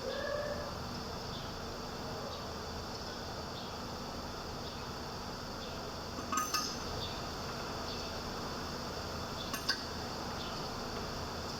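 Steady low hum with faint, repeated high chirps, and two short metallic clinks, one just past halfway and another about three seconds later.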